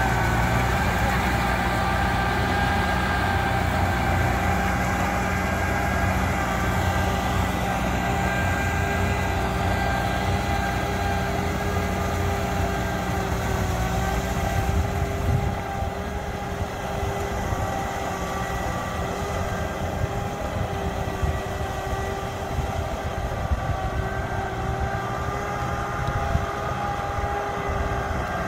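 Heavy diesel farm machinery (the tractor and the rice combine harvester) running steadily, a deep engine rumble with a steady whine on top. The rumble eases off a little about halfway through.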